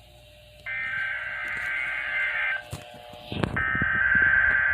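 NOAA Weather Radio SAME header data bursts: harsh, buzzy digital screeches of a Required Weekly Test. Two of the bursts are heard, the first starting just under a second in and the second about a second after it ends, with scattered clicks in the gap.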